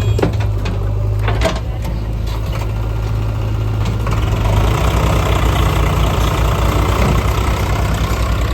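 Heavy diesel engine running steadily with a deep rumble, working harder from about five seconds in.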